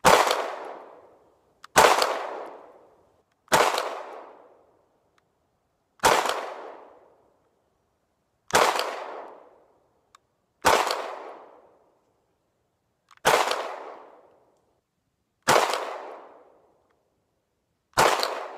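Nine 9mm pistol shots from a Hi-Point C9, fired singly about two seconds apart, each trailing off over a second or so. Fired limp-wristed, the pistol cycles every round with no jam.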